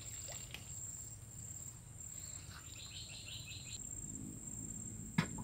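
Steady high-pitched insect buzz, with a short run of about five quick chirps midway and a single sharp click near the end.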